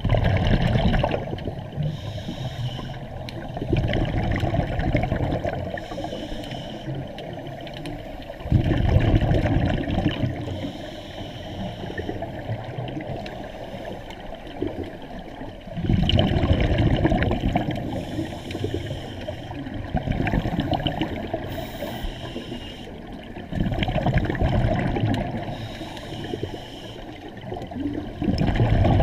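Scuba exhalation bubbles heard through an underwater camera housing: muffled low rushing bursts of two to three seconds that come back every few seconds over a steady underwater hiss.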